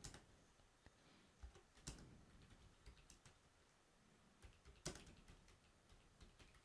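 Faint computer keyboard keystrokes: irregular typing clicks, a few of them louder, against near silence.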